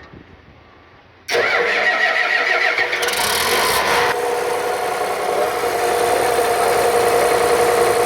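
Komatsu PC400 excavator's diesel engine cranked by its newly fitted starter motor, starting suddenly about a second in, catching within a few seconds and settling into a steady idle: the new starter has cured the no-start.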